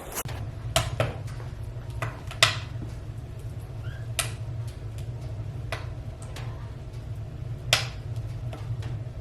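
A small engine idling with a steady low hum, while about seven sharp knocks and clacks of hard objects come at uneven intervals over it.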